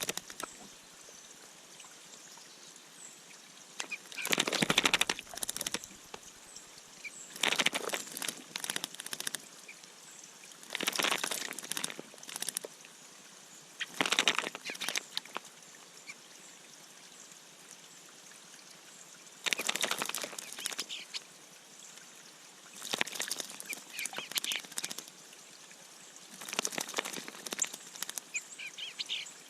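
A bird bathing in a shallow bird bath, splashing and fluttering its wings in the water in repeated bursts of a second or two, about seven times.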